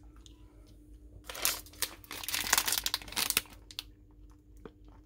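Plastic SweeTarts Chewy Fusions candy bag crinkling as it is picked up and handled: a dense crackling for about two seconds, starting just over a second in, then a few light clicks.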